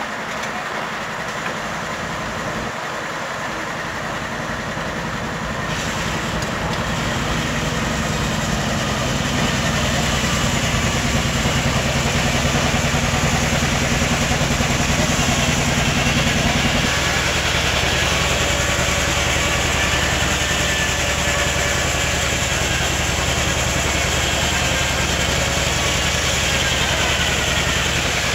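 Machinery running steadily with a low hum, growing louder about ten seconds in and changing pitch about seventeen seconds in.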